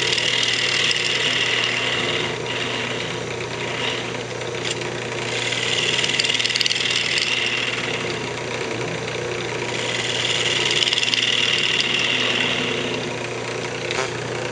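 Wood lathe running with a steady motor hum while a gouge cleans up the spinning maple. Three separate passes of cutting hiss, each a few seconds long.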